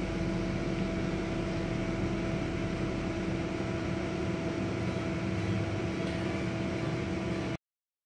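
Oxyacetylene torch flame hissing steadily as it melts lead at a battery's intercell connector, with a faint steady hum under it. The sound cuts off suddenly near the end.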